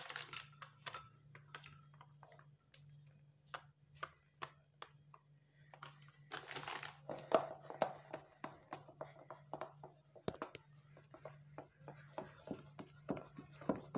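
Wooden rolling pin beating buttercream of white butter and icing sugar in a plastic bowl: irregular knocks and scrapes of the wood against the bowl, with a longer scraping stretch about halfway through. Near the end the strokes settle into a steady beat of about three knocks a second. A low steady hum lies underneath.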